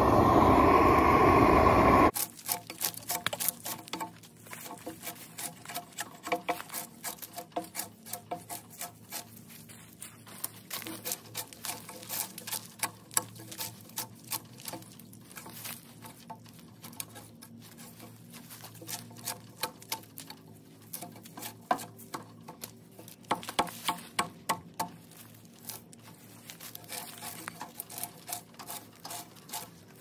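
A propane weed-burner torch runs with a steady loud rush for about two seconds, then cuts off. After that a drawknife peels bark off a log, a run of short scrapes and clicks in clusters with short pauses between strokes.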